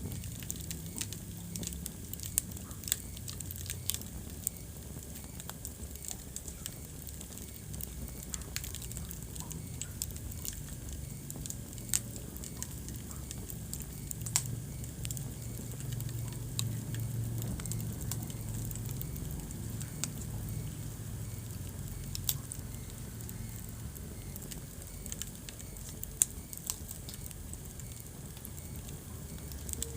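Wood fire burning in a fireplace: a steady low rumble of flames with crackles and pops scattered every second or so, and a few louder snaps.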